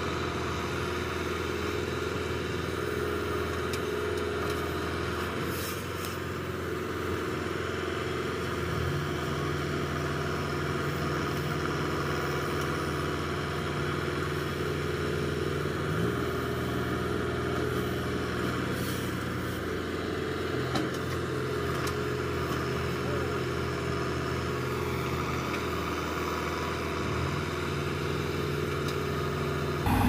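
Mahindra Novo 605 tractor engine running steadily while powering a Bull backhoe loader's hydraulics as it digs and loads soil, its note stepping up and back down several times as the arm takes load.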